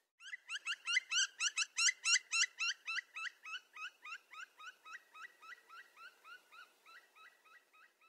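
Woodpecker calling: a long series of quick, rising notes, about four a second, loudest in the first two seconds and then slowly fading.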